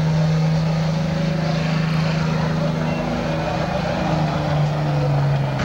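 Dodge Ram pickup's Cummins diesel engine running with a steady drone, with faint crowd voices in the background.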